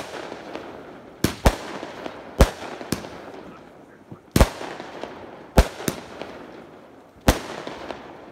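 Aerial fireworks going off: a run of about nine sharp bangs, roughly one a second and some in quick pairs, each trailing off in an echo.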